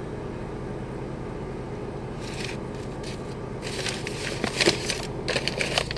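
A brown paper envelope crinkling and rustling as it is handled and pulled out of a car's glove box, briefly about two seconds in and again for a second or two near the end. Under it runs a steady low hum inside the car.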